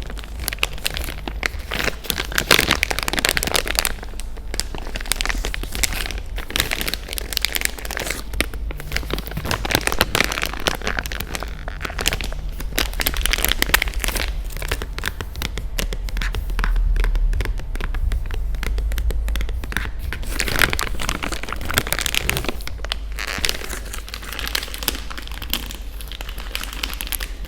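Close-miked crinkling and rustling, like packaging or a plastic wrapper being handled, in irregular bursts over a low steady hum.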